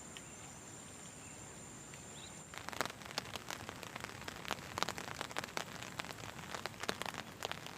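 A faint steady hiss with a high, steady whine. About two and a half seconds in, the whine cuts off and a dense, irregular patter of sharp ticks and crackles begins.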